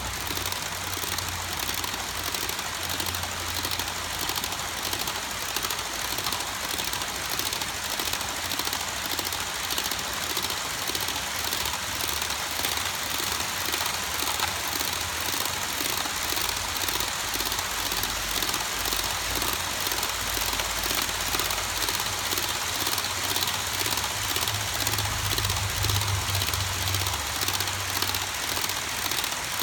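Long HO scale model train of covered hopper cars rolling past on the track: a steady rattle of small metal wheels, with clicking in an even rhythm, over a low hum that swells for a few seconds near the end.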